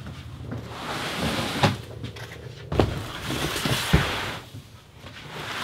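Van doors being handled: rushing slides and three sharp metal clunks, spaced about a second apart.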